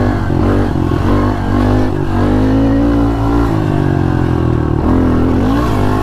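Honda CRF110 pit bike's small single-cylinder four-stroke engine running under throttle while being ridden, its pitch rising and falling as the throttle is worked, with a brief dip and climb again near the end.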